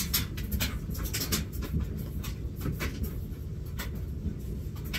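Clothes rustling and a plastic laundry basket clicking and knocking as laundry is pulled out and pushed into a washing machine: many short scratchy rustles over a steady low hum.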